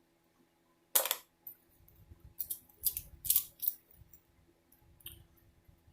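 Small metal tool-kit items being handled close to the microphone: one sharp click about a second in, then a few lighter clicks and rustles.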